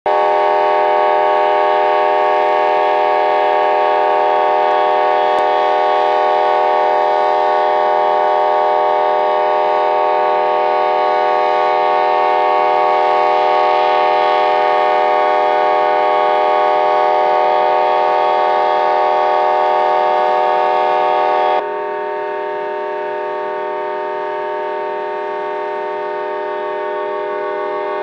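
A diesel locomotive's air horn sounding one continuous chord of several steady tones without a break, a horn that blared for about three hours. About three-quarters of the way through it abruptly drops to a quieter level and keeps sounding.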